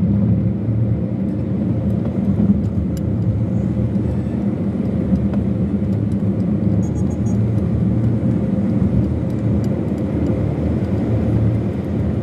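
Steady engine hum and road rumble of a moving vehicle, heard from inside while riding in traffic.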